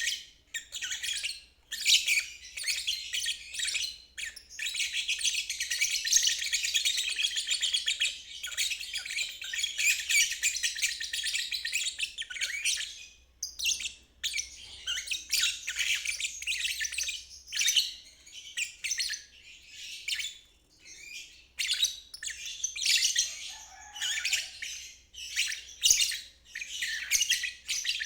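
Lovebird ngeriwik: long runs of rapid, high-pitched chattering trill, broken by brief pauses, one of them just short of halfway through.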